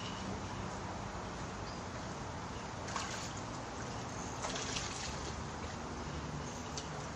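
Steady outdoor background noise with a few brief splashes of pond water, one about three seconds in and two close together near five seconds.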